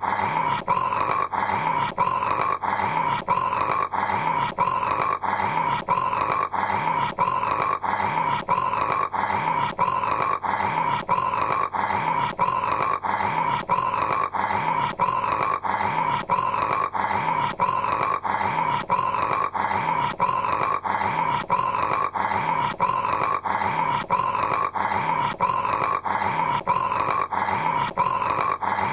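A man snoring: a short snore repeated over and over at an even, fast rhythm of about two a second, unchanging throughout, like a looped recording.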